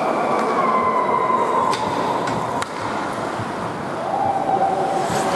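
Ice hockey in play in an indoor rink: the steady scraping hiss of skates on the ice, with a few sharp clacks of sticks and puck about halfway through.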